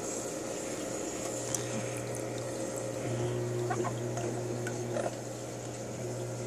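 Steady hum of a reef aquarium's pump with water moving, the hum growing a little stronger and higher about three seconds in and easing back near the end, with a few faint clicks.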